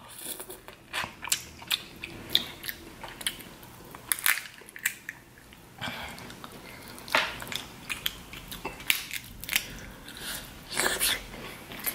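A person eating sauced snow crab legs close to the microphone: chewing and sucking the meat from the shells and pulling shell pieces apart, with irregular wet clicks and small crunches.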